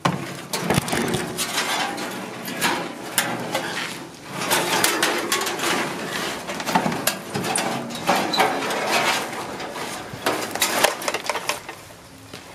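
Tangled wire mesh and scrap being pulled about by hand: irregular rattling, scraping and crunching with many sharp clicks.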